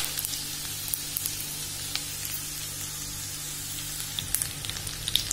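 Oil and ghee sizzling in a kadai as chopped garlic, curry leaves, mustard seeds and cumin fry in it for a tadka, with scattered small pops and crackles over a steady low hum.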